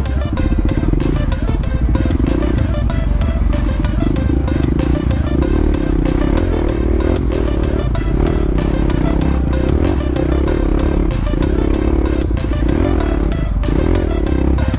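Dirt bike engine running under load on a rocky trail, its note rising and falling with the throttle, over steady clattering from stones under the wheels. Background music plays underneath.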